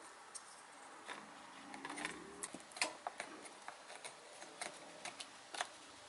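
Faint, scattered light clicks and taps of a DDR4 SODIMM memory stick being handled and slid into its slot on a laptop motherboard, the sharpest click a little under three seconds in.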